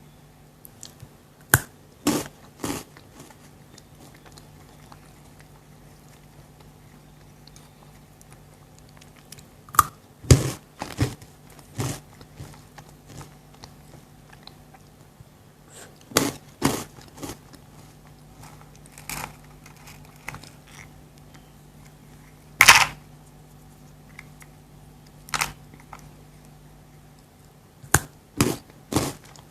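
Close-miked crunching bites into chocolate snacks, with quieter chewing between them. The sharp crunches come in short clusters every few seconds.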